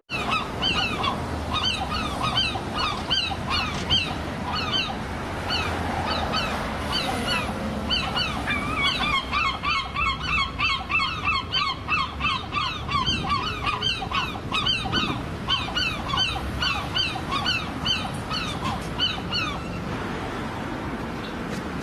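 Herring gulls calling: a long run of rapid repeated call notes from several birds at once, sparse at first, packed close through the middle, and dying away near the end.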